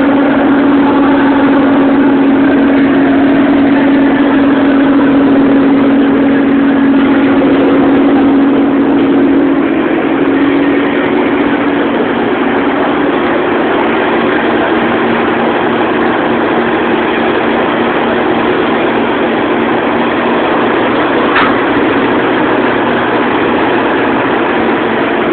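Ford Maverick V8 engine running steadily at idle. A steady hum in its note fades out about ten seconds in, and the engine runs on slightly quieter.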